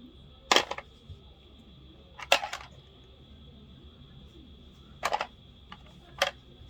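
Four short, sharp clicking clatters, spaced one to three seconds apart, over a faint steady high-pitched hum.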